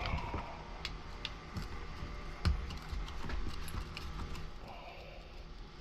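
Scattered light clicks and clinks of small metal tools and parts being handled, likely Torx screws and bits on the bench, with a sharper knock about two and a half seconds in.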